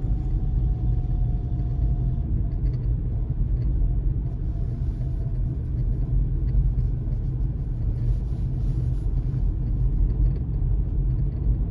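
Steady low rumble of a car driving, heard from inside the cabin, with a faint tone falling gently in pitch over the first couple of seconds.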